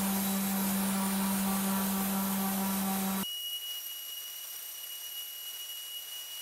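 Random orbital sander running on a cast iron table saw top: a steady low hum under the hiss of the pad on the metal. About three seconds in the sound cuts off abruptly and gives way to a quieter, steady high-pitched whine.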